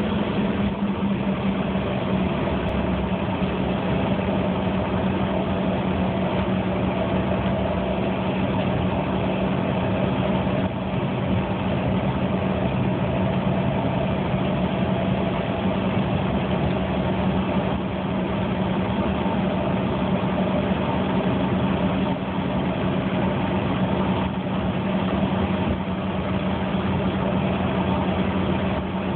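Bombardier CRJ200's twin rear-mounted General Electric CF34 turbofans heard from inside the passenger cabin, running at a steady low power with no spool-up: a constant hum with a few held tones.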